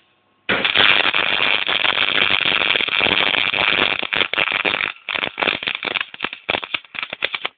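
MIG welding arc crackling steadily, then breaking into irregular sputters for the last couple of seconds before cutting off. The sputtering comes from the arc getting too long, with the torch drifting too far from the work and at the wrong angle.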